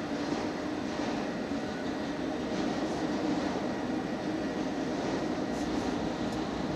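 Union Pacific autorack freight cars rolling past, a steady noise of steel wheels on rail.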